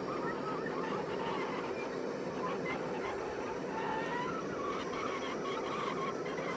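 G scale covered hopper cars rolling past on garden railway track: a steady rolling noise from the wheels, with thin wavering squeals coming and going.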